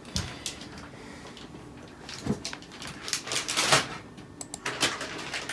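Scattered light clicks and knocks, a few louder ones in the middle: a computer mouse being clicked and moved on a marble tabletop.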